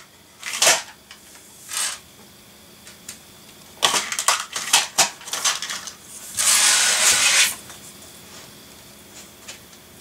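Small metal computer screws clicking and rattling against hard plastic as they are gathered and dropped into a small plastic drawer organiser. There are a few single clicks, then a quick run of clicks, then about a second of scraping rattle about two-thirds of the way through.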